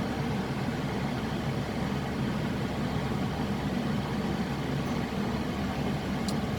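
Steady low drone of vehicle engines and road traffic, even in level throughout, with no horn sounding.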